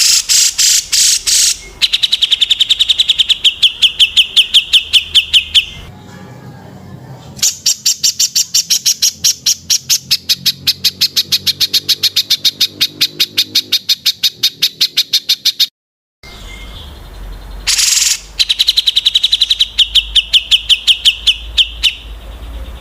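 Small songbirds giving rapid trains of sharp, evenly repeated chirps, many notes a second, in runs several seconds long. There is a brief total silence just after halfway.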